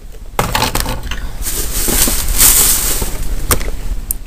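Rustling and crinkling of plastic as packaged toys are handled and pulled from a shopping bag, running about three and a half seconds with a few sharper crackles.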